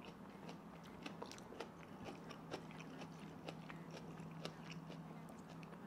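Chewing a mouthful of kimchi and spicy fire noodles: irregular wet clicks and crunches, a few a second, over a faint steady low hum.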